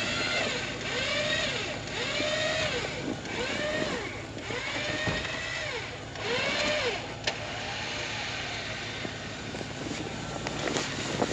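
A winch motor run in short repeated bursts, each one whining up and back down in pitch, roughly once a second for about seven seconds, as the trailer is inched sideways. After that comes a steadier, quieter running sound with one sharp click.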